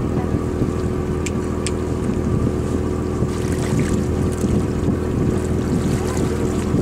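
A boat's engine runs with a steady hum, with wind on the microphone. Two short clicks come about a second and a half in, and water splashes about halfway through.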